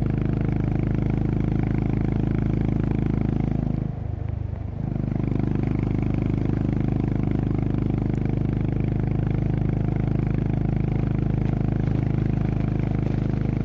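Honda CB350RS's single-cylinder engine running steadily as the motorcycle rides along. The engine note dips briefly about four seconds in, then picks up again at the same steady pitch.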